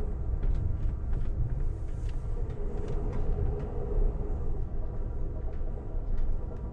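Amtrak passenger train running along the track, heard from inside the coach: a steady low rumble of wheels on rail with scattered light clicks.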